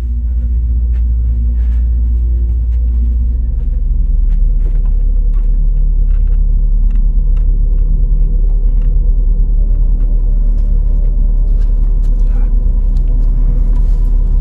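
A loud, steady, deep rumbling drone from an ominous ambient soundtrack bed, with faint held tones above it. Scattered faint clicks sit over the drone.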